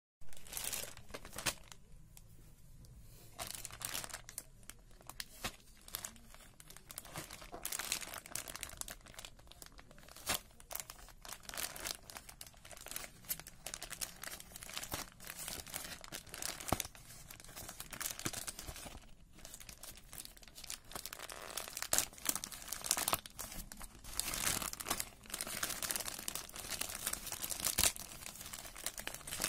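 Plastic packaging being torn open and handled by hand: the bag crinkles and tears in irregular crackles, getting louder near the end.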